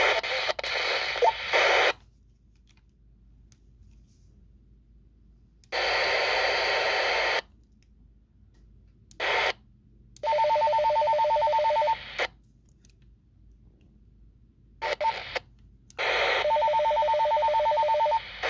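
Midland F-20 FRS walkie-talkie's speaker receiving short transmissions as spells of radio hiss that cut in and out, with near silence between them. Twice, about ten seconds in and again near the end, a transmission carries a rapidly warbling two-tone call signal.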